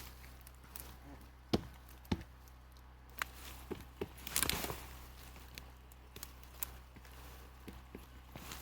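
Scattered, irregular knocks and thuds of wood as a wedged log is worked loose, the sharpest about a second and a half in, with a short rougher burst of knocking a little past the middle.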